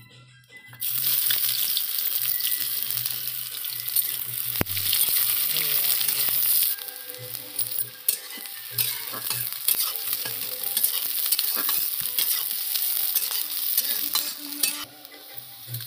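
Sliced onions going into hot oil in a kadai: a sudden loud sizzle about a second in. The sizzling carries on while a spatula stirs and scrapes the onions around the pan, with small clicks of metal on metal.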